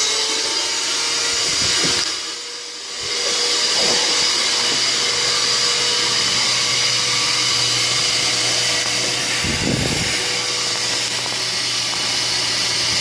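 Shop vac motor running steadily with a hum and a whine, pulling suction through a hose taped into a car's tailpipe. The level dips briefly about two seconds in.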